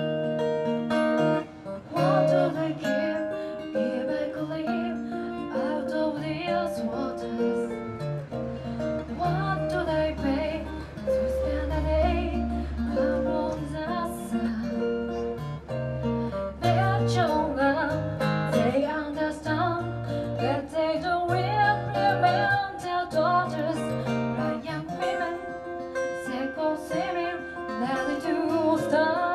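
A woman singing a song live into a microphone, accompanied by an acoustic guitar.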